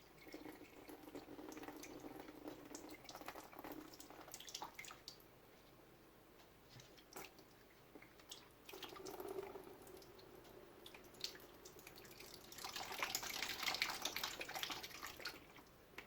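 Faint running and dripping water with small scattered clicks of handling, rising to a louder rush of water for about three seconds near the end.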